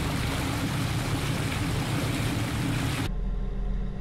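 Sport-fishing boat under way: a loud rushing of water and wind over the low hum of its engines. About three seconds in the sound changes abruptly to a steadier, lower engine rumble with less water noise.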